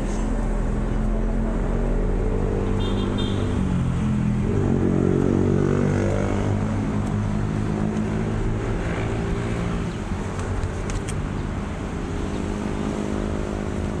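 An engine running steadily, its pitch rising for a couple of seconds about four seconds in, then settling.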